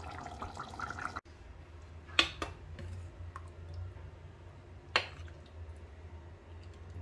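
Chicken and vegetable stew being dished up: soft wet scooping sounds and a few sharp clinks of a serving utensil against crockery. Two clinks come close together about two seconds in and one about five seconds in, over a low steady hum.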